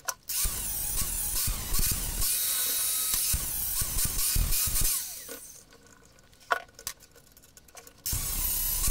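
Angle grinder grinding the end of a steel chisel clamped in a vise, a steady rush whose pitch wavers as the disc is pressed into the metal. It stops about five seconds in, leaving a few light clicks, and starts grinding again near the end.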